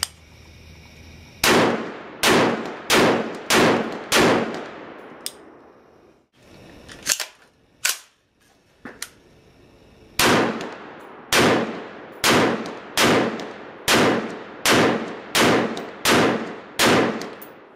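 Gunshots from a 7.5-inch-barrel AR-15 short-barrelled rifle fired in steady semi-automatic strings. A run of five shots comes a little under a second apart, then after a pause two single sharper cracks, then a run of about ten more at the same pace. Each shot has a short echoing tail.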